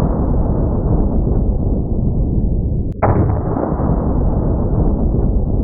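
A shot from a Smith & Wesson .500 Magnum revolver, heard as a long, drawn-out deep boom that hangs and fades slowly. About three seconds in it breaks off and the same boom starts again just as loud: the shot replayed in slow motion.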